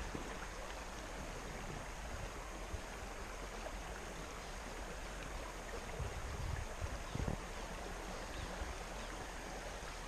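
Steady rush of flowing river water, with a few low bumps partway through.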